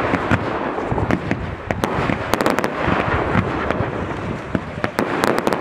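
Fireworks display: a dense, continuous run of crackling pops and bangs from bursting shells, with a thick cluster of sharp cracks about halfway through and another near the end.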